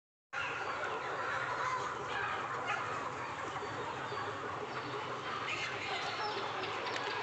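Chickens clucking and calling in a continuous mix of many short calls, over a steady low hum.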